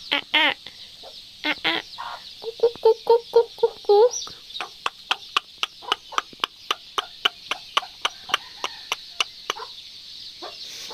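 Chickens clucking: a few short low clucks, then an even run of quick clucks about three a second, over a steady high-pitched buzz.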